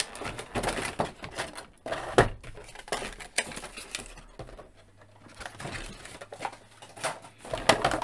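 Action-figure packaging handled by hand: the clear plastic blister tray and cardboard insert crinkling, scraping and clicking as they are pulled from the box, in irregular bursts with a quieter stretch a little past the middle.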